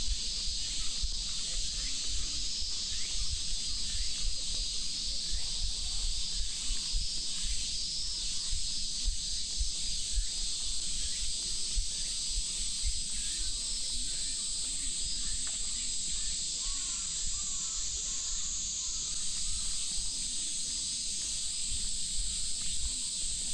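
A summer chorus of cicadas: a steady, high-pitched hiss, dipping slightly about two-thirds of the way through. Under it runs an uneven low rumble, as from wind on the microphone.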